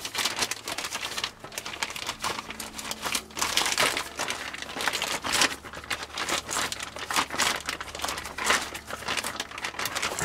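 Gallon-size plastic zip-top bag crinkling in irregular bursts as a hand grips and turns a spin-on oil filter through it, catching the draining oil.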